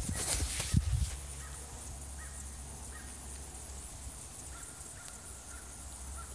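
Goat kid's hooves knocking on a wooden cable-spool table in the first second, then a steady low wind rumble on the microphone with a few faint short chirps.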